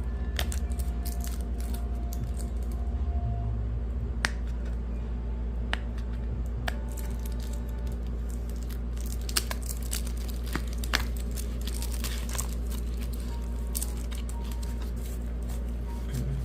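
Scattered short clicks, taps and crinkles of a boxed alarm clock and its packaging being handled and unpacked, over a steady low hum.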